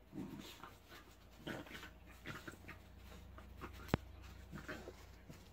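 A dog panting and snuffling faintly with small whimpers as it noses at a spiky object in the snow. A single sharp click about four seconds in.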